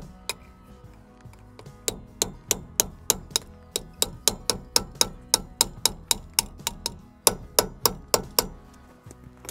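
Hammer tapping on pliers to drive out the split pin from a Land Rover Series III front hub nut: a regular run of sharp metallic taps, about three a second, starting about two seconds in with a short break near the seven-second mark. Background music runs underneath.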